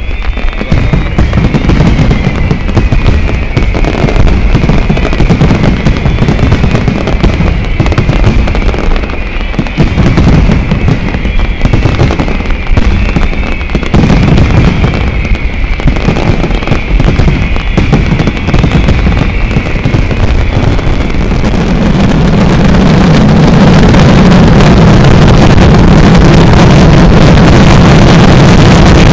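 Aerial fireworks display: a rapid, continuous barrage of bangs and crackles with high whistles falling in pitch again and again. About three-quarters of the way in it builds into a louder, steady, unbroken roar of explosions.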